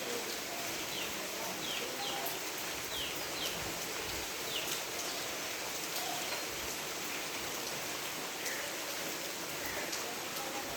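Steady rain falling, with a bird giving short falling chirps several times in the first few seconds and a couple more faintly near the end.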